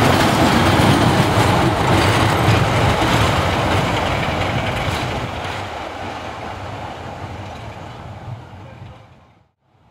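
A train of coaches with a Class 33 diesel locomotive on the end rolls past and away, its wheels running on the track, and fades steadily as it recedes. The sound cuts off shortly before the end.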